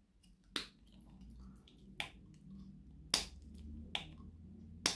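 Small clear plastic diamond-painting drill container having its lid snapped open and shut: five sharp plastic clicks, roughly a second apart.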